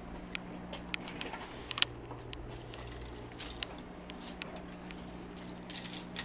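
Irregular light clicks and taps, a dozen or so, the sharpest about two seconds in, over a steady low hum.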